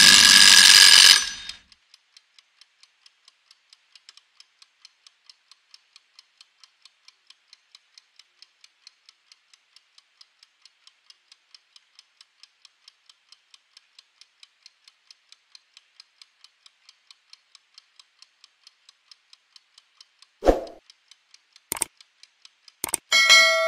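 Mechanical kitchen timer's bell ringing as it reaches zero, cutting off about a second and a half in, followed by the faint, fast, even ticking of its clockwork. Near the end come a thump, a couple of clicks and a short chime.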